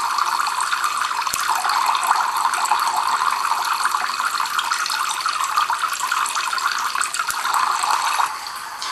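Tap water streaming steadily from the drip pipes of a home-made Kelvin water dropper into its metal collector cans, cutting out shortly before the end. Two faint sharp snaps about six seconds apart, from sparks jumping the gap between the two metal balls.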